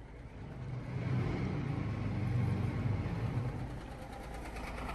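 Classic Scammell wrecker's engine running under load as it tows a heavy truck on a suspended tow. The low rumble builds about a second in and eases off near the end.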